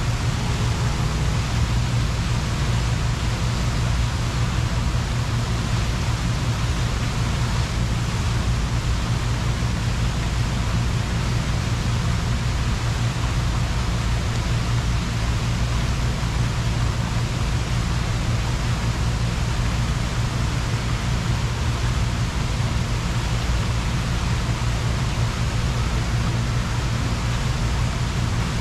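Steady rushing and splashing of water from the jets of Buckingham Fountain, an even hiss with a strong low rumble underneath.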